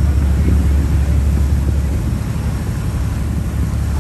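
Boat engine running steadily: a deep, constant drone under a broad hiss of wind and water, easing slightly in loudness in the second half.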